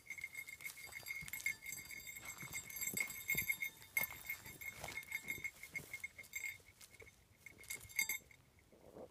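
A hound whining high and thin in pulses while she noses into brush. Her collar tags clink and twigs and pine needles rustle.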